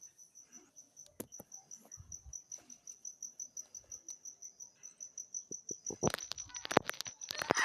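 A cricket chirping steadily, a faint, even run of high-pitched chirps about six a second. From about six seconds in, clicks and rustling handling noise grow louder over it.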